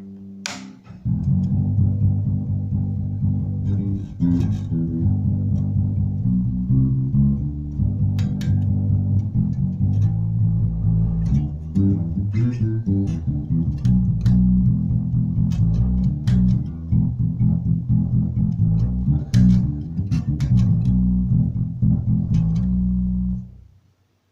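Maruszczyk Elwood X5 five-string electric bass guitar being played: a busy run of bass notes starts about a second in and stops abruptly near the end, with light string and fret clicks over the low notes.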